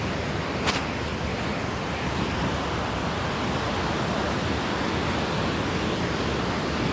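Ocean surf washing steadily onto a beach, a continuous rushing noise, with one short click just under a second in.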